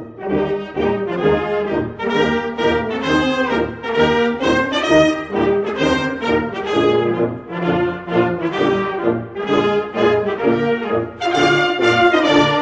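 Orchestral music led by brass instruments playing a melody.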